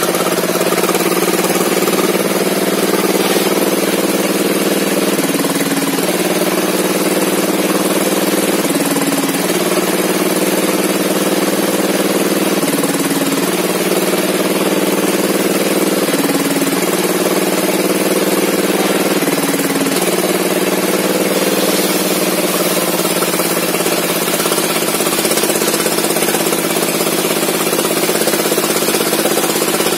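Small petrol saw engine, likely a chainsaw, running steadily at high revs, its pitch stepping up and down slightly every few seconds as the load on the cut changes.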